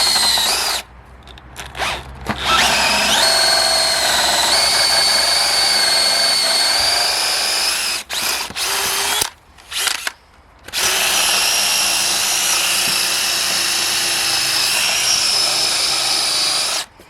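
DeWalt DCD795 cordless drill boring into thick, hard wood under heavy load. It runs in several trigger pulls with brief stops between, two of them long, and its motor whine rises as it spins up.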